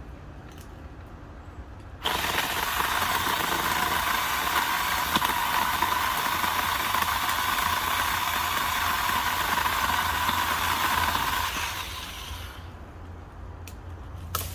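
Craftsman V20 20-volt battery pole chainsaw running and cutting into a dead tree's wood. It starts abruptly about two seconds in, runs steadily for about ten seconds, then winds down near the end.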